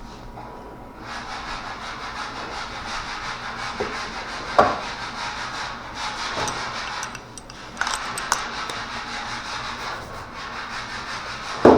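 Sandpaper rubbing back and forth over body filler on a car panel, rough-sanding it down, with a short pause about two-thirds through.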